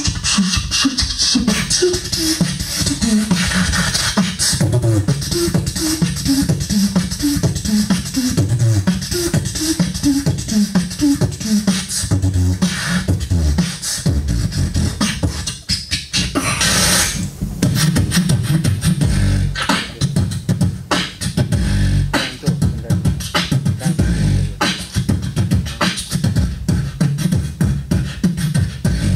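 Beatboxing into a handheld microphone: a fast, dense run of mouth-made drum hits with deep bass. Hummed notes step along under the beat in the first part, and there is a long hiss about halfway through.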